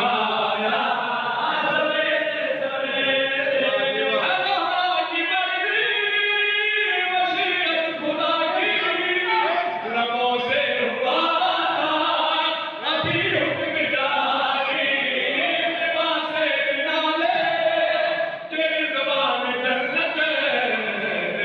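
A man's voice chanting a devotional recitation into a microphone, amplified, in continuous melodic lines that slide up and down in pitch.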